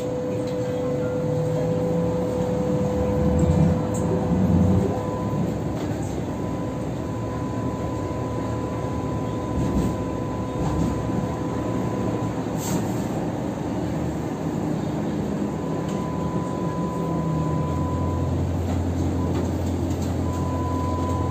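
Hong Kong Light Rail car running between stops, heard from inside the car: a steady running rumble with a thin steady whine. A lower tone rises and falls a few seconds in, and a deeper hum comes in about three-quarters of the way through.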